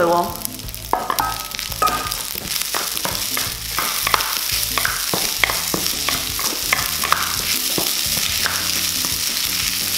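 Fried rice sizzling in a hot wok while a wooden spatula stirs and tosses it, with a steady sizzle and frequent short scrapes and knocks of the spatula against the pan.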